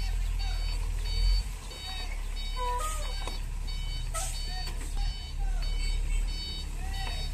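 FAW J6P-350 dump truck reversing: its reversing alarm beeps steadily, about three beeps every two seconds, over the low rumble of its diesel engine.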